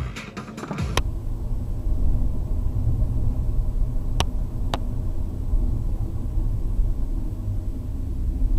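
Car driving, heard from inside the cabin through a dashcam: a steady low rumble of road and engine noise. Two sharp clicks about half a second apart come a little past the middle. Music with a beat plays for the first second and cuts off abruptly.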